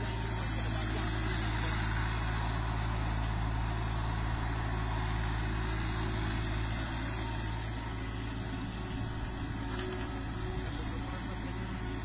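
Kubota 3-ton zero-tail-swing mini excavator's diesel engine running steadily while it digs.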